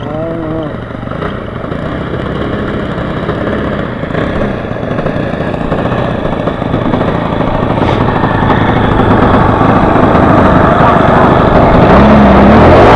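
Four-stroke model airplane engine of an RC Cessna running and growing steadily louder. It has a hard knocking sound that the pilot suspects may just be characteristic of a four-stroke.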